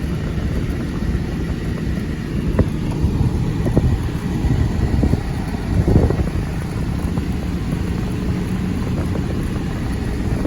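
Vehicle driving, its steady engine and road rumble heard from inside the cabin, with a few light knocks, the strongest about six seconds in.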